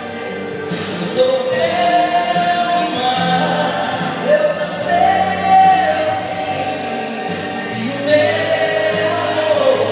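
Music: a song with long held sung notes that glide between pitches over the backing track, with no words clear.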